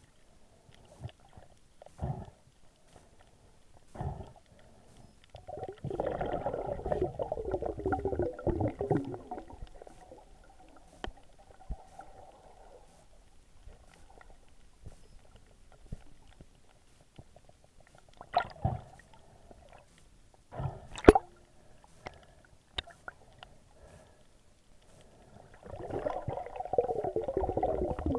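Underwater gurgling of air bubbles in two long spells, about six seconds in and again near the end, with a few sharp knocks between them, the loudest about 21 seconds in.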